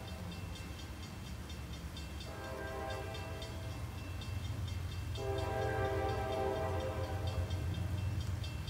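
Freight locomotive's multi-chime air horn sounding two long blasts, the second louder and longer, over the steady rumble of the diesel engine. A fast, regular ticking runs underneath, typical of a grade-crossing bell.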